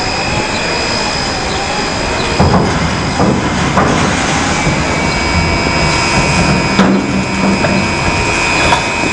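Gantry crane machinery running with a steady high whine, and several sharp metallic clanks and knocks from a few seconds in as the suspended steel box is tipped over.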